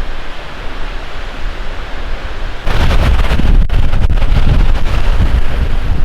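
Strong, steady wind buffeting the microphone, with a heavy rumble; a gust makes it much louder about halfway through.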